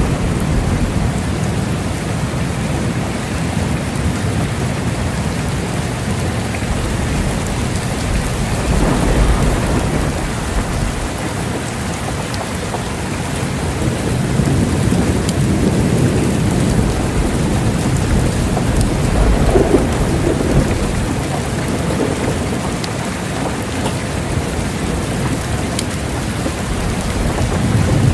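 Steady heavy rain with rolling thunder, a low rumble that swells and fades several times.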